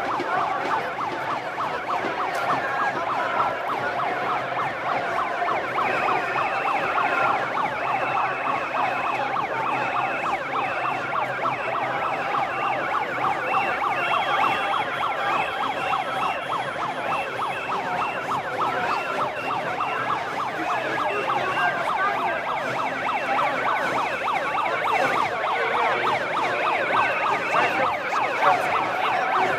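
Noise of a large street protest: a steady, dense din of many shrill tones sounding over one another, with short repeated high tones from about six seconds in.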